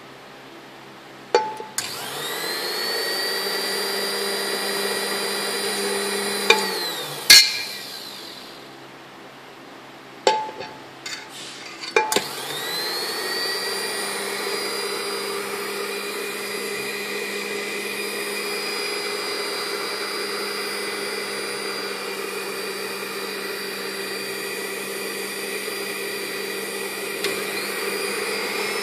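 Spindle motor of a COBEPAN milkshake/ice-cream drink mixer, the whisk turning in an empty stainless steel cup. It spins up with a rising whine and runs steadily, then stops with sharp metallic clanks about seven seconds in and winds down. After a few clicks it spins up again about twelve seconds in and runs steadily.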